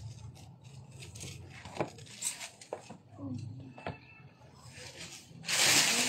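Stiff patterned cloth rustling as it is handled, with small taps and rubs, then a loud rustle near the end as the folded length is opened out and lifted up.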